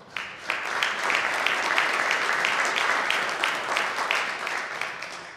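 Audience applauding. It starts suddenly and fades out after about five seconds, with one nearby person's claps standing out at about three a second.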